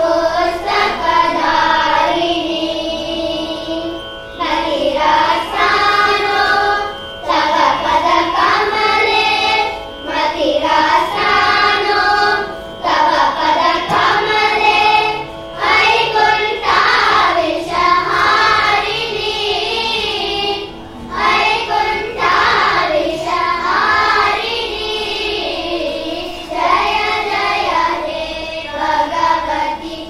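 A group of children singing a melody in phrases, with brief gaps between them. A steady held note of accompaniment runs underneath.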